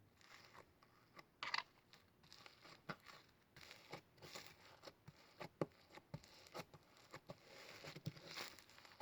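Clear slime packed with glitter being squeezed and kneaded by hand, giving faint, irregular crackling and crunching pops.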